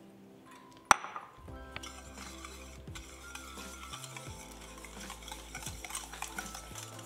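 Wire whisk beating eggs and sugar in an enamel-lined saucepan: a sharp knock about a second in, then fast, continuous metal scraping and clinking against the pot.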